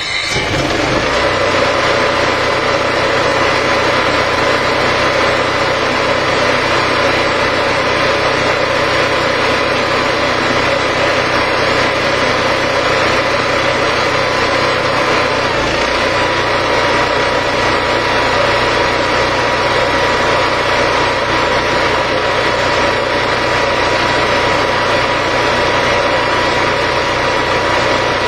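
Onan RV generator running steadily, with a faint steady whine over the engine noise. About sixteen seconds in, the pitch dips briefly and recovers.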